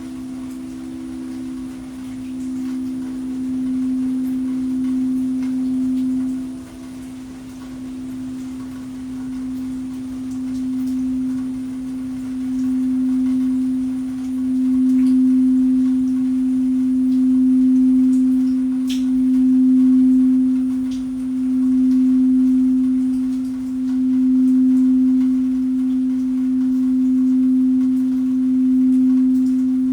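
Singing bowl sounding one low, steady tone that swells and dips about every two seconds. A second, slightly higher tone fades away in the first ten seconds, and the bowl grows louder about halfway through.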